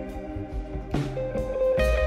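Background music: a guitar piece with plucked and strummed notes in a blues style.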